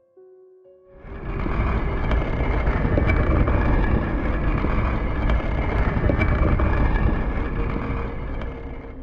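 Loud, deep rushing noise that swells in about a second in, holds steady and dies away near the end: a sound effect that plays with the winged reaper Halloween animatronic.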